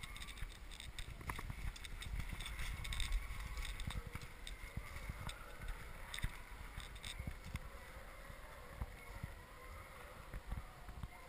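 Horse being ridden along a leaf-covered woodland trail: scattered hoof falls and the rustle and snap of dry leaves and brush, over a low rumble of wind and movement on the microphone.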